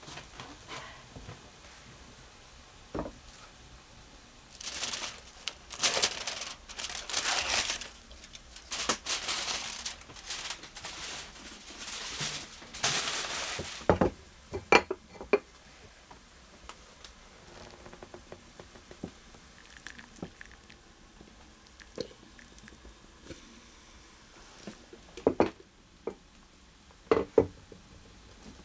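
Rustling and crinkling for several seconds, followed by scattered light clicks and knocks, as of kitchen items being handled.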